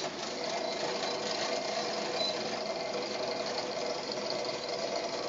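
Foley Belsaw 355 knife grinder running steadily, its grinding head driven along the planer knives by a 90-volt DC traverse motor; an even machine whine and hum with no breaks.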